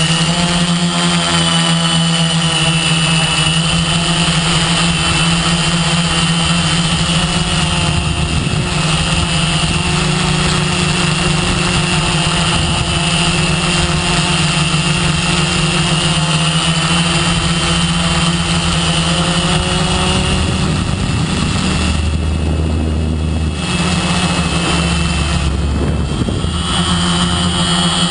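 Quadcopter's electric motors and propellers heard from the craft's own onboard camera as it lifts off and climbs: a loud, steady buzz with a high whine. The whine dips in pitch about twenty seconds in and climbs again near the end, with two low rumbles in the last few seconds.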